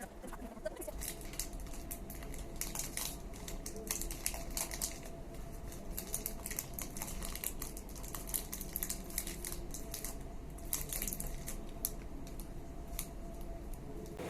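Irregular light clicks and crinkling from small objects being handled close by, over a low steady background hum.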